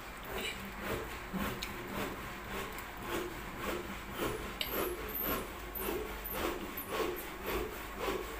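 Hand saw cutting wood with steady back-and-forth rasping strokes, a little under two a second, from repair work going on in the house.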